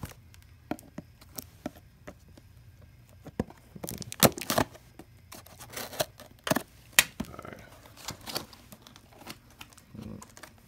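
Cardboard box being pried open by hand against its packing tape: scattered sharp knocks, scrapes and crinkles of cardboard and tape, with a few louder snaps about four and seven seconds in.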